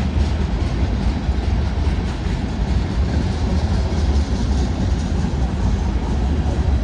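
Manifest freight train rolling past: a steady, loud rumble with rail and wheel noise and no horn.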